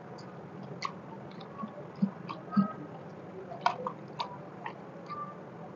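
Scattered light clicks and rustles of fresh coriander leaves being picked out of a steel bowl by hand, over a faint steady low hum.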